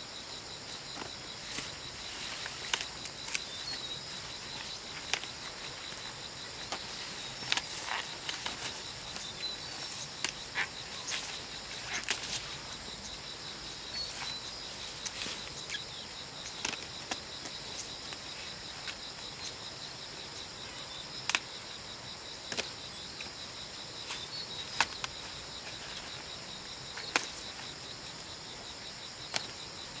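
Steady insect chorus, a continuous high shrill drone, with short sharp snaps and crackles scattered through it.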